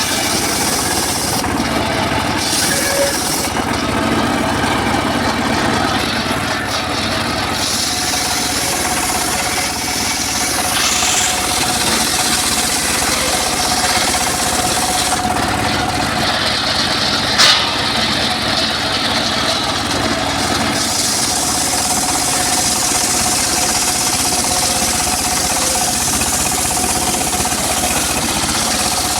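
Home-built circular saw cutting teak wood: the motor runs steadily under a constant whine, while the hiss of the blade in the wood comes and goes in long stretches as the cuts start and finish. One sharp knock sounds about halfway through.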